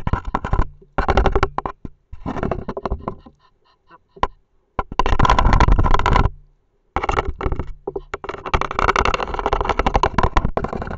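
Egyptian goose right at the camera: loud, crackling bursts close to the microphone, in about five stretches lasting from half a second to two and a half seconds, with short gaps between.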